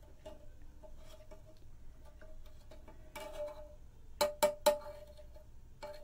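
Light metallic taps and clinks of a batik tjanting tool against the metal wax pot, three sharp ones in quick succession about four seconds in, each with a short ring.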